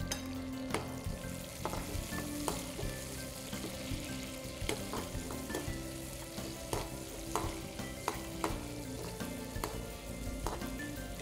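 Chopped tomato, onions, garlic and green chillies sizzling in hot oil in a frying pan. A metal spatula stirs them, clicking and scraping against the pan at irregular intervals.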